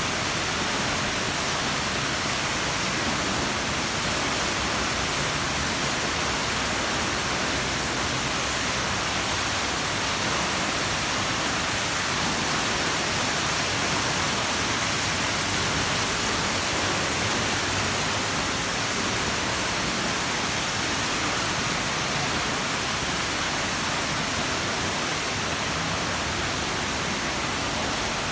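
Steady rushing and splashing of water from a swimming-pool water feature, an even hiss with no breaks.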